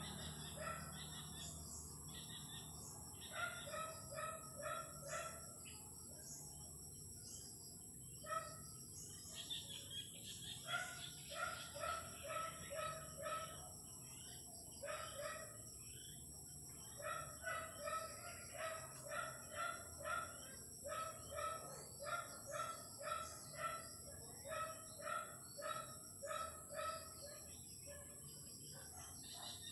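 Chickens calling and clucking, runs of short repeated calls about two a second, with a steady high-pitched hum underneath.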